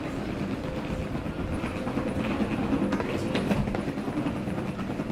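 Baggage carousel running: a steady rumble and rattle of its moving slatted belt, with faint clicks.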